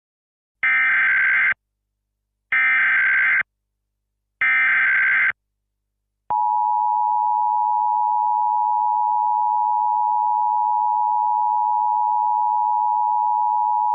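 Emergency Alert System tones: three short buzzing bursts of SAME digital header data, each about a second long with a second's gap between them, followed about six seconds in by the steady two-tone EAS attention signal.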